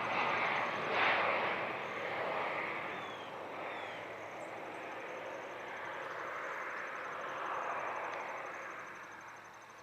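Airplane engine noise receding as the aircraft flies away, loud at first and fading steadily over several seconds.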